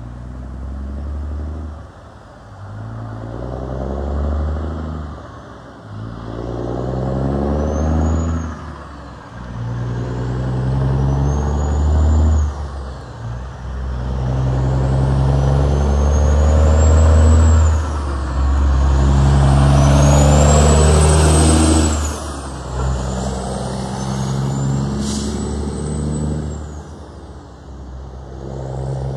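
Heavy diesel truck pulling away and accelerating up through the gears: the engine note climbs in each gear and drops at each of about six or seven shifts, with a turbo whistle rising and falling along with it.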